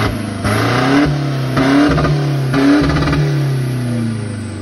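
Heavily tuned Isuzu D-Max 1.9-litre four-cylinder turbodiesel revved hard in several quick blips, rising and falling about once a second, then dropping back toward idle near the end.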